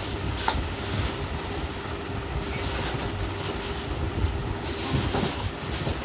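Steady low rumbling background noise with a faint steady hum, broken by a few light knocks and brief rustles.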